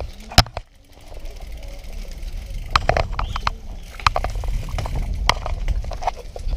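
Ride noise from a bicycle rolling along a rough concrete lane: a low rumble that builds after about a second, with sharp clicks and knocks from the bike rattling over the bumps.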